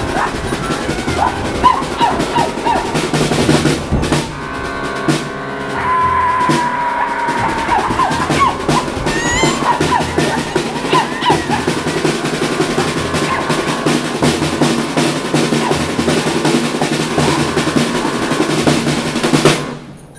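A small live band of drum kit, accordion and double bass playing, driven by a fast snare drum roll, then stopping abruptly near the end.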